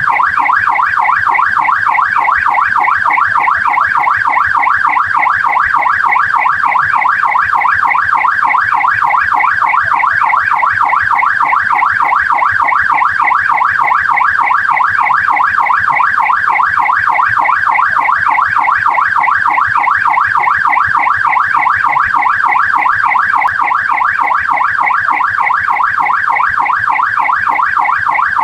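Australian police car's electronic siren on the yelp setting: a rapid rising-and-falling wail repeating several times a second, loud and steady.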